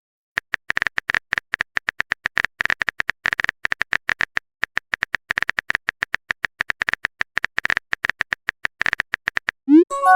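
Rapid, irregular phone-keyboard typing clicks, each a short high tick, for about nine seconds. Near the end they stop and a quick rising swoop and a short multi-note chime follow, a message-sent alert.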